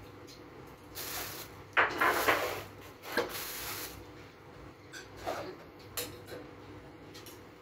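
Dishes and chopsticks being handled as food is served into bowls: a run of scraping and rubbing sounds between about one and four seconds in, then a few light clicks of chopsticks against bowls.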